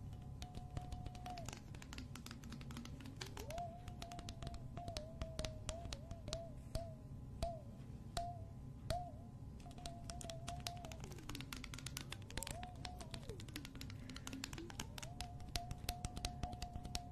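Long acrylic fingernails tapping and clicking rapidly and irregularly on a small glass jar with a metal lid, close to the microphone. A faint single-note melody that holds and glides runs underneath.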